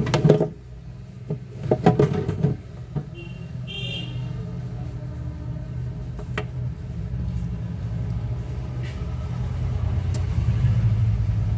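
Steady low rumble with a few sharp clicks and taps, a cluster of them about two seconds in, and a short high beep about three and a half seconds in.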